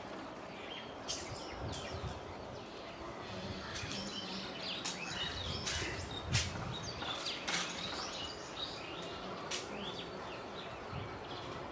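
Birds chirping and twittering over steady outdoor background noise, with a few short, sharp clicks.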